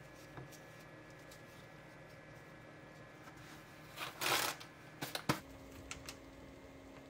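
Faint steady hum, then a short rustle of a cloth towel about four seconds in, followed by a few sharp clicks. After the clicks a new low steady hum sets in as the induction cooktop's setting is changed.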